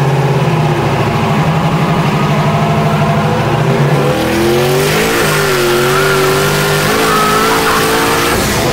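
Turbocharged LS V8 engine of a BMW race car, heard inside the cabin while driving, running at a steady pitch and then shifting about four to five seconds in, with a brief rise before it settles.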